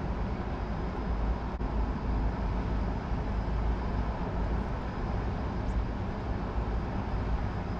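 Wind buffeting the camera microphone: a steady low rumble with a continuous rushing hiss over it.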